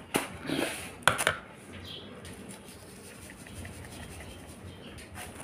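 Handling a plastic container of sugar over a stainless steel pot: a few knocks and scrapes in the first second and a half, the loudest just after a second in. Then only a faint hiss while sugar is poured into the pot.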